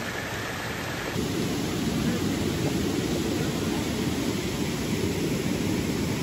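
Water of a shallow, fast stream rushing over rocks: a steady noise that turns louder and deeper about a second in.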